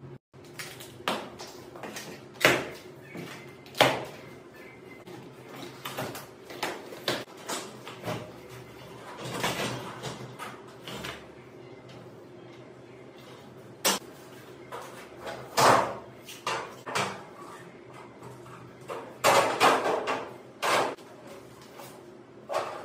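Irregular knocks, clicks and short scrapes of cabinet panels and door hardware being handled and fitted while a cabinet with a lift-up glass door is assembled, over a faint steady hum.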